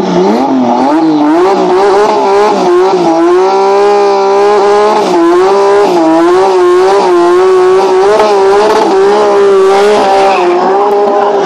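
Turbocharged drag car doing a burnout: the engine revs up sharply, then is held at high revs that waver up and down about twice a second while the rear tyres spin and squeal. The revs drop away at the end.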